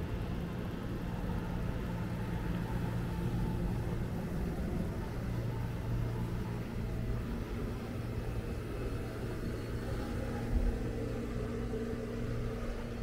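Steady low rumble of a vehicle engine running, with a short thump about ten and a half seconds in.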